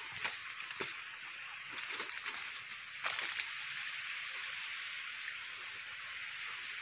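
Leaves and branches rustling in a few short bursts during the first three and a half seconds as someone pushes through forest undergrowth, over a steady high hiss.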